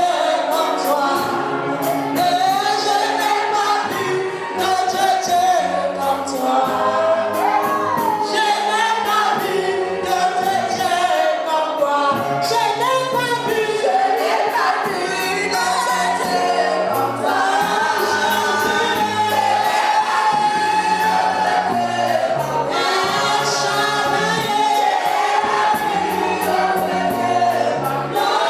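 Gospel worship song with choir singing over a band, a steady bass line and percussion.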